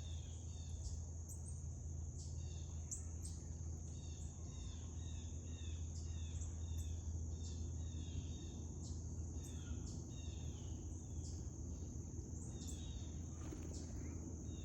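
A steady high insect drone of crickets, with short bird calls of quick gliding notes repeating every second or so, over a low steady rumble.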